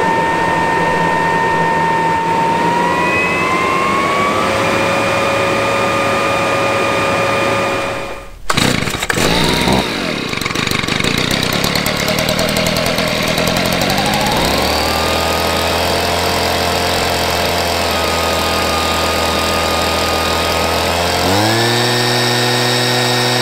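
Cordless HART 40V brushless backpack leaf blower whining steadily at full throttle, its pitch rising slightly, then cut off sharply about eight seconds in. A few seconds later a Stihl two-stroke handheld gas leaf blower comes up to speed and runs at half throttle, changing engine speed near the end.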